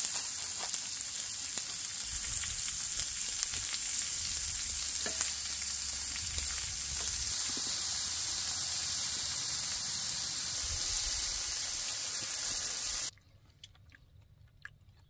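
Pine cones burning in a campfire: a steady hiss with scattered crackling pops. About 13 seconds in it cuts off abruptly to near quiet, with a few faint ticks.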